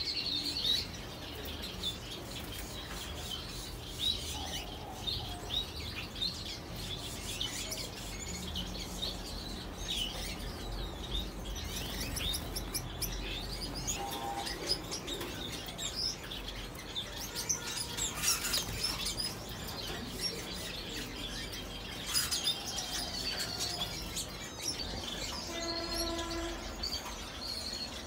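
Many small aviary birds chirping and calling together, with short high chirps overlapping throughout and a brief lower, pitched call near the end.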